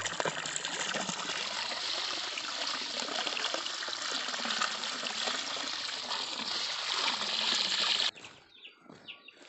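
Running water pouring and splashing over a bunch of freshly pulled peanut plants as their pods are rinsed clean. The steady rush cuts off suddenly near the end.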